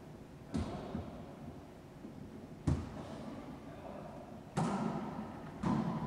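Wallyball rally in an enclosed racquetball court: the rubber ball is struck by players' hands and rebounds off the walls. There are four sharp thuds at uneven intervals, each followed by a short echo.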